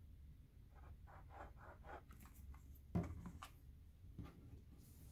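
Faint rubbing and rustling of paper cut-outs being handled on a wooden tabletop, with one sharp knock about three seconds in as a plastic glue bottle is set down on the table.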